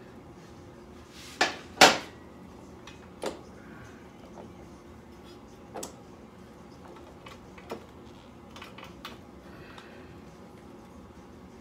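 Scattered metallic clinks and knocks of hand tools and metal parts being handled. The loudest are two sharp knocks close together about a second and a half in, followed by lighter single clicks every couple of seconds.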